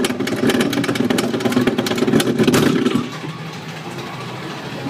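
Roller coaster car running along its track: a loud rumble with rapid clattering, dropping to a quieter run about three seconds in.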